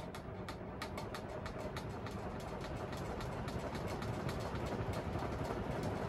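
Crompton Greaves High Breeze 56-inch ceiling fan speeding up toward high speed, its whoosh and hum growing steadily louder. Quick, uneven rattling clicks run through it: the canopy, tightened up against the wooden mount, is rubbing and knocking on the wood as the fan shakes slightly.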